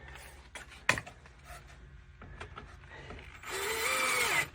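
Drill with a star bit runs for about a second near the end, driving in an arm-pad screw; its motor whine drops in pitch as it stops. Before it come light clicks and knocks of parts being handled.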